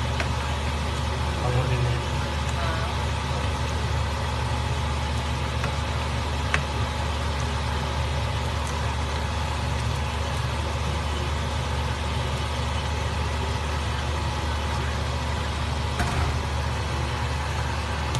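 A steady low hum with a light hiss, unchanging throughout, with a couple of faint clicks.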